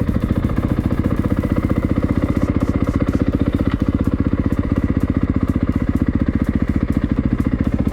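2024 Yamaha YZ250FX's single-cylinder four-stroke engine idling steadily while it warms up after a cold start, with an even, rapid pulsing beat.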